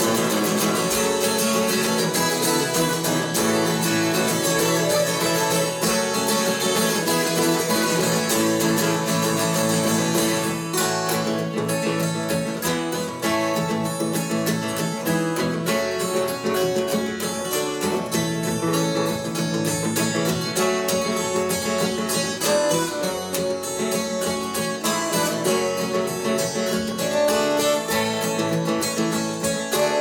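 Two acoustic guitars, a six-string and a twelve-string, playing an instrumental passage together, strummed and picked, with no singing.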